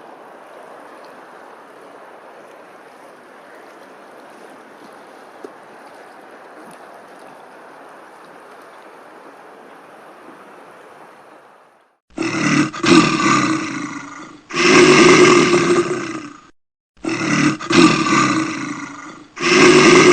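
A large animal giving four loud, drawn-out roaring calls in quick succession, each about two seconds long, starting about twelve seconds in. Before them there is a steady rushing noise.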